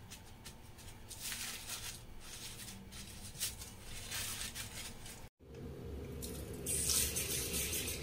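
A hand patting and rustling a paper towel over a pile of black beans. About five seconds in, this gives way abruptly to tap water running and splashing into a bowl of black beans over a stainless steel sink, louder near the end.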